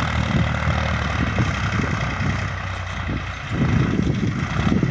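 New Holland TT55 tractor's diesel engine running steadily while ploughing, a continuous low drone that turns rougher and more uneven about three and a half seconds in.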